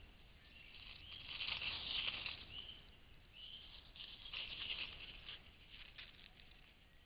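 Faint rustling and pattering in dry leaf litter as red fox cubs move about close by, in two spells, with a couple of short high chirps between them.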